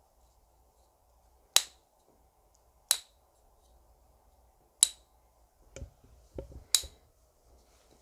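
Four sharp snaps, one every second and a half or so, from a fidget toy whose flaps are peeled back like corn husks, with some soft handling rustle between the last two.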